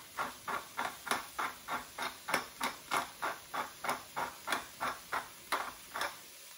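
Hand-twisted pepper mill grinding black peppercorns: a steady run of short scraping clicks, about three a second, that stops shortly before the end.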